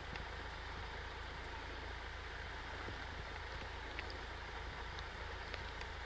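Steady outdoor background hiss with a low rumble underneath and a few faint scattered ticks.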